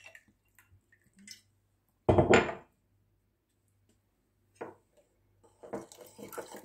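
A loud knock of glassware set down on a stone countertop about two seconds in. Near the end, a metal spoon clinks against a ceramic bowl as a glass of water is poured into yogurt and cucumber and stirred.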